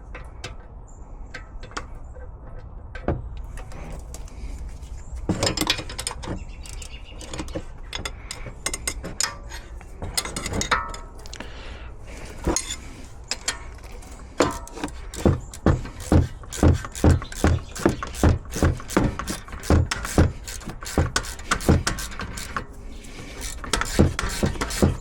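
Metal parts and tools clinking and clattering as a part is worked into place, then from about halfway a hand ratchet clicking in a steady rhythm, a little over two clicks a second.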